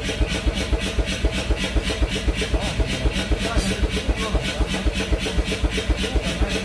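Steady, even mechanical thumping at about five beats a second, from a machine running in the workshop.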